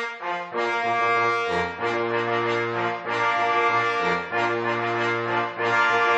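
Brass-led intro music: held chords that change about every second, over a low bass line.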